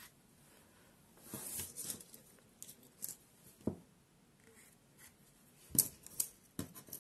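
Small handling sounds of hand-sewing yarn hair onto a crocheted doll: soft rustling of yarn and fabric with scattered small sharp clicks, a quick run of them near the end.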